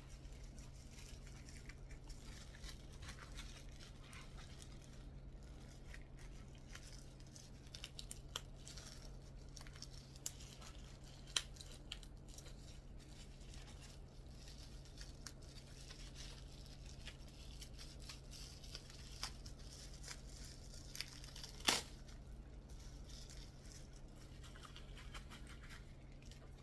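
Packaging being torn and crinkled open by hand, faint, with scattered small clicks and a sharper click about 11 seconds in and again near 22 seconds. A low steady hum runs underneath.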